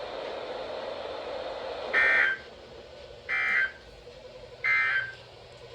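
Emergency Alert System end-of-message code: three short bursts of screechy digital data tones about 1.3 s apart, signalling the end of the alert. Before the first burst there is about two seconds of radio hiss.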